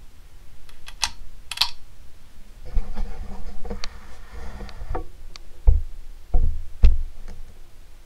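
Camera handling noise: two sharp clicks about a second in, a brief whirr, then three low thumps near the end as the camera is moved and reframed.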